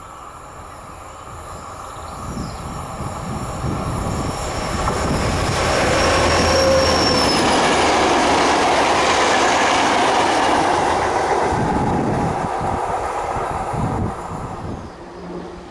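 A convoy of SNCF locomotives, green diesels with an electric locomotive among them, passing on the main line. The rumble builds, peaks as they go by, then fades away. A brief high whine sounds about six to seven seconds in.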